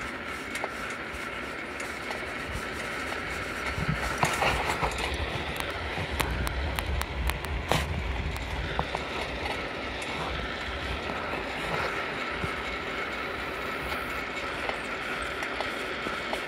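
Steady rolling noise of a bicycle ride on asphalt, heard from a moving bike: tyre hum with light rattling and scattered clicks over a low rumble, one sharper click a little before the middle.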